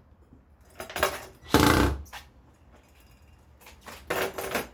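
Short bursts of tool and handling noise from screws being driven into a ceiling fan box: a few brief ones about a second in, a louder burst just under two seconds in, and another cluster near the end.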